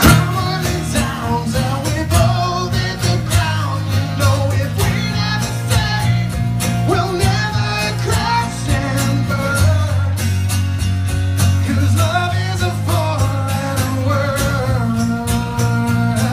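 A small acoustic band playing live: strummed acoustic guitars with a man singing the lead melody into a microphone, the music coming in suddenly at the very start.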